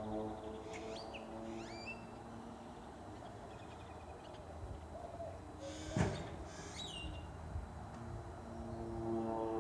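Low drone of several steady held tones coming from the sky, an unexplained sound heard repeatedly all day; it eases off in the middle and swells again near the end. Small birds chirp in two short bursts, and there is one sharp click about six seconds in.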